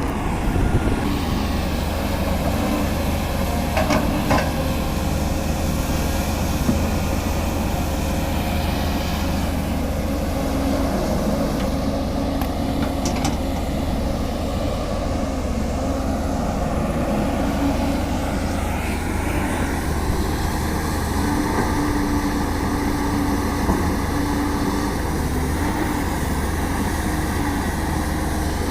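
Caterpillar 320D excavator's diesel engine running steadily as the machine works, with a few brief knocks along the way and a slight change in engine note past the middle.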